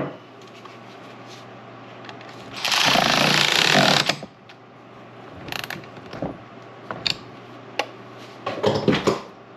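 A power tool runs in one burst of about a second and a half, tightening the battery terminal nut, followed by a few scattered clicks and knocks of tool handling.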